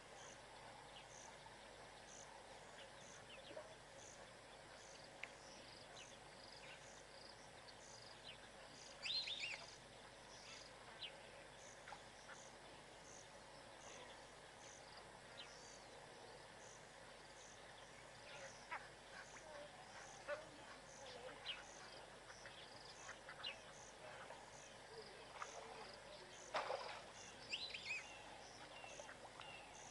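Faint wild ambience: an insect chirping high and evenly, a little over once a second. Short bird calls break in now and then, the loudest about nine seconds in and again near the end.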